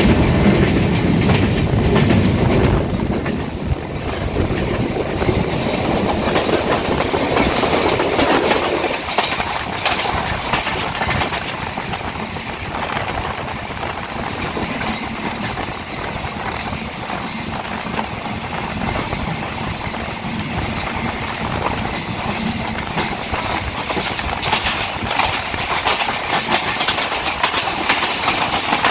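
Passenger train coach running along the track, heard from an open window: a steady rumble of wheels on rail with clatter over the rail joints, heavier for the first few seconds.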